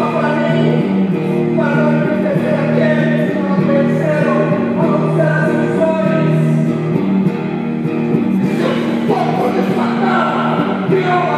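Electric guitar played live through a small amplifier: slow, sustained notes ring over held low tones, and the playing turns denser and busier about eight and a half seconds in.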